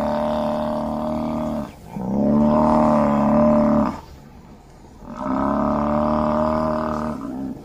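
Buffalo growl: three long, steady-pitched calls of about two seconds each, separated by short pauses.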